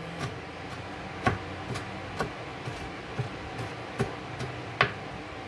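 Kitchen knife chopping green pepper on a plastic cutting board: about ten irregular knocks, roughly two a second, the loudest near the end.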